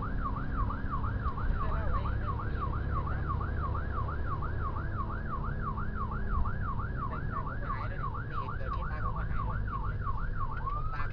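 Emergency vehicle siren in a fast yelp, sweeping up and down about three times a second without a break, over a steady low rumble of the vehicle on the road.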